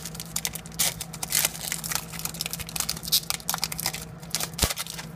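Foil wrapper of a Pokémon Trading Card Game booster pack crinkling and tearing as it is pulled open by hand, a run of irregular crackles. A single dull knock comes near the end.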